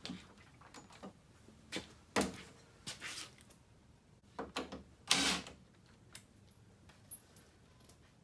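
Scattered knocks, clicks and short scrapes of tools and parts being handled while checking the snowblower's spark, with the loudest scrape about five seconds in and a few light ticks near the end.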